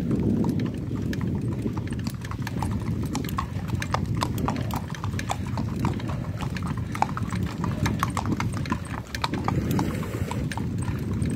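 Horses' hooves clip-clopping on an asphalt road as several walking horses pass close by, a quick irregular run of sharp clicks, over a steady low rumble.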